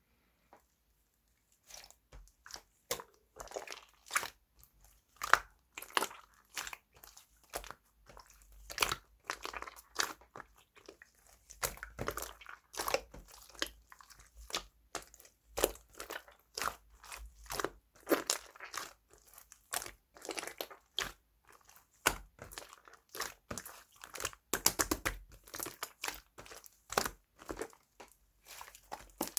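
Whipped-cream-textured slime being squished and pressed by hand, giving a dense, irregular run of crackling clicks and pops that begins about a second and a half in.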